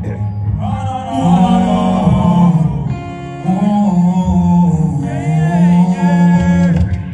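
A song playing with a singer's drawn-out melodic vocal lines, without clear words, over guitar and a steady low bass.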